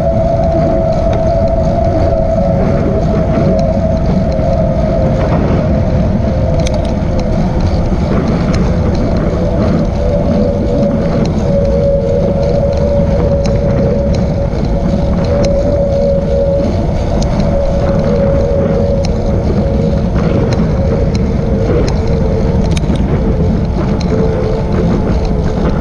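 Wind buffeting the microphone and tyre noise on pavement during a ride at about 17 mph, with a steady whine that slowly falls in pitch as the speed eases. A few faint ticks come through.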